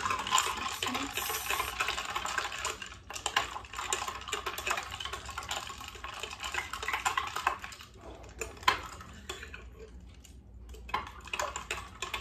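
A spoon stirring iced coffee with ice cubes in a glass mug, clinking fast and steadily against the glass and the ice. The stirring slows for a few seconds about two-thirds of the way in, with one sharp clink, then picks up again.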